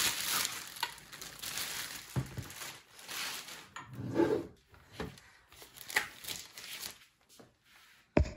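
Packaging rustling and crinkling as parts are handled from the box, in irregular bursts with a few light knocks, dying away near the end.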